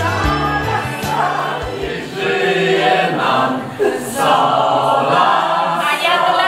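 A group of people singing together, a toast song for the birthday. The backing music ends within the first second or two.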